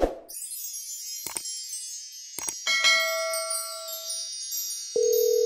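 Sparkly wind-chime shimmer sound effects for an animated logo, with a few short hits, a cluster of ringing chime tones about three seconds in, and a single steady tone that comes in sharply near the end.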